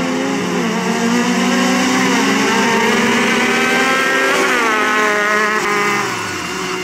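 Several side-by-side UTV engines, Can-Am Maverick X3s and Yamaha YXZs, one of them supercharged, running hard together in a drag race. About two-thirds of the way through their pitch drops, and the sound eases off near the end.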